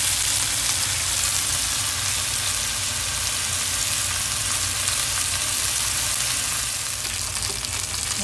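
Chicken thigh frying skin-side down in a nonstick frying pan, sizzling steadily in the fat rendered from its own skin, which has turned crisp. A low steady hum runs underneath.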